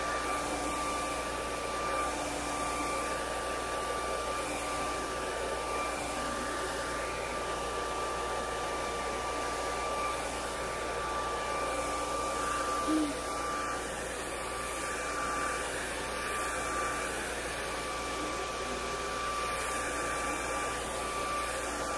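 Handheld hair dryer with a comb attachment running steadily while blow-drying hair: a constant rush of air with a steady whine from the motor.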